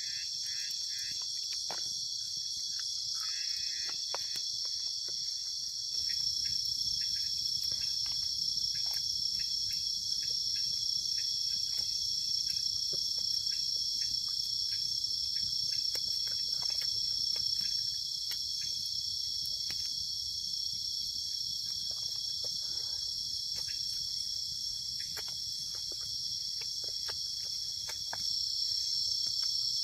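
Steady night chorus of crickets and other insects, a continuous high-pitched shrill. Scattered small clicks and crackles sound over it.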